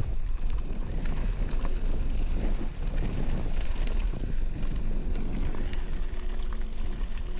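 Wind rushing over the microphone of a mountain bike's action camera as the bike rolls downhill, with tyre noise and scattered clicks and rattles from the bike over rough gravel and grass.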